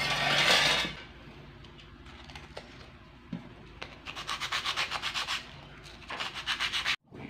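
A bamboo stick rubbed quickly back and forth on a scrap of sandpaper to shape it, in two runs of rapid, even scraping strokes about four and six seconds in. A loud rushing noise fills the first second.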